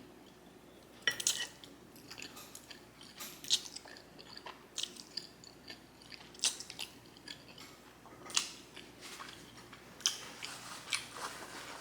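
A person chewing a mouthful of creamy pasta and chicken, with irregular short mouth smacks and clicks.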